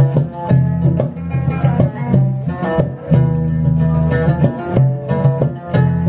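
Instrumental music: plucked guitar notes over a low bass line, with no singing.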